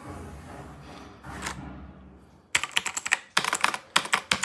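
Keys of a new TVS Gold Prime mechanical keyboard being pressed in fast runs of sharp clicks, starting about halfway in after a couple of seconds of quieter handling noise.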